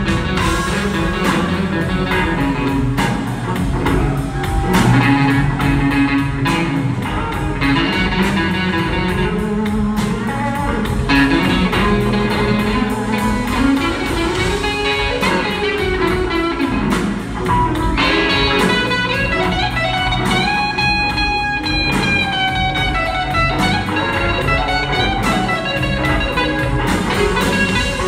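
Live blues band playing a slow blues: an electric guitar lead with long gliding, bending notes over drums, bass and rhythm guitar.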